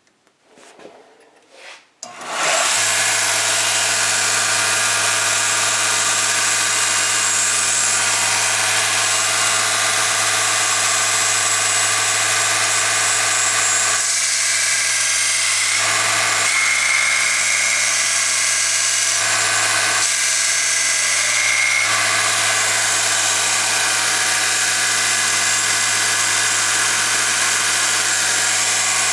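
A Rikon 1x30 belt and disc sander switches on about two seconds in and runs steadily with a motor hum and belt hiss. Between about 14 and 22 seconds the sound changes a few times as the steel plane iron is pressed to the 60-grit belt to grind its bevel.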